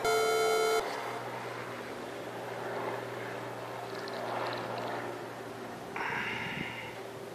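A bright electronic melody ends about a second in. It leaves a steady low hum of distant engines, with a short brighter rustle of handling about six seconds in.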